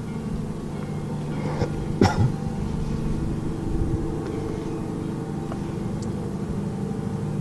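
Steady low droning hum made of several fixed tones: the unexplained night-time noise that resembles a distant airplane but runs on without stopping. A brief sharp noise breaks in about two seconds in.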